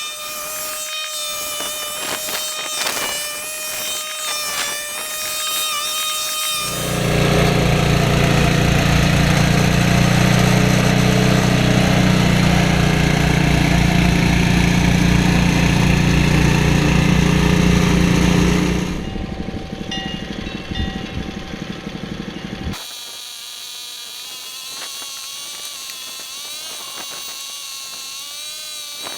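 1976 Ariens Sno-Throw snowblower's five-horsepower Tecumseh Snow King engine running, in several cut-together stretches: a steady pitched drone at first, then much louder with a deep hum for about twelve seconds from around seven seconds in, then fainter with a wavering drone.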